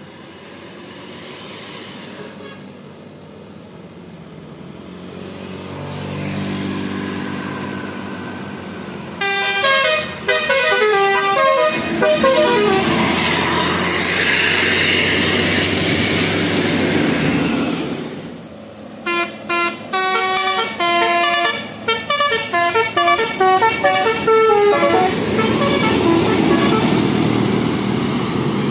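Bus telolet basuri horn, a multi-tone musical air horn, playing quick runs of short melodic notes as the bus approaches. It plays about nine seconds in and again, in choppier phrases, from about nineteen to twenty-five seconds in, over the bus's engine.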